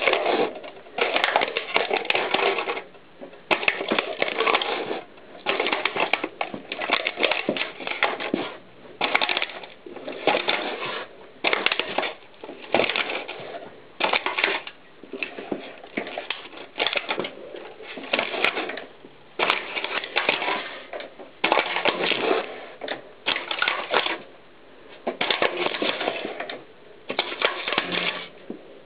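A plastic VHS videotape cassette cracks and crunches as a mountain bike tyre rolls over it again and again. The sound comes in repeated crackling bursts, each about a second long, with short pauses between them.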